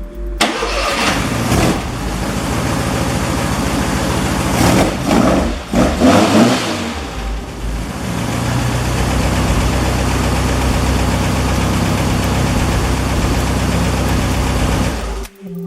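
Air-cooled Volkswagen Beetle flat-four engine running: it is revved in a couple of surges a few seconds in, then settles to a steady run. The sound cuts off suddenly near the end.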